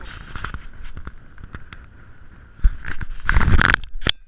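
Handling noise on a body-worn action camera: clothing rubbing and knocking against the camera and its microphone, with scattered clicks. A louder stretch of rustling and thumping comes about three seconds in, then stops suddenly near the end.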